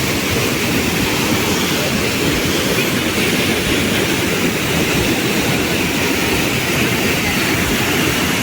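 Rushing water of a waterfall heard close by: a loud, steady noise that keeps on without a break.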